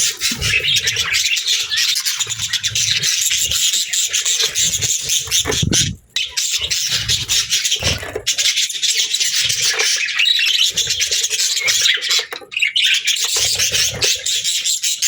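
Budgerigars chirping and chattering continuously in a rapid, dense stream of high-pitched calls, with a brief break about six seconds in.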